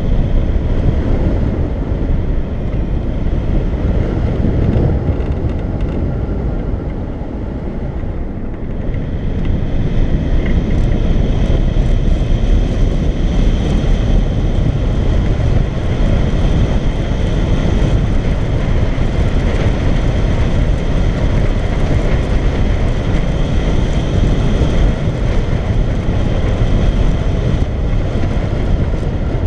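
Airflow rushing over a camera microphone mounted on a hang glider's wing in flight: a loud, steady low rumble that eases a little about seven seconds in, then picks up again.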